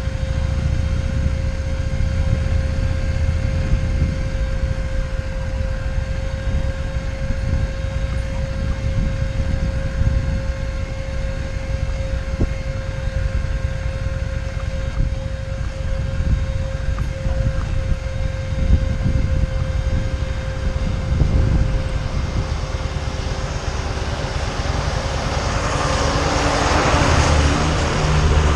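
A vehicle engine running steadily with an even whine, over a fluctuating low rumble. A broad rushing noise swells over the last few seconds.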